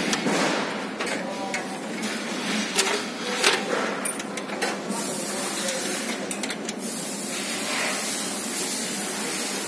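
Glass panel of an Ilve Majestic oven door being handled and worked loose from its metal frame: scattered clicks and knocks, most in the first half, over a steady hiss.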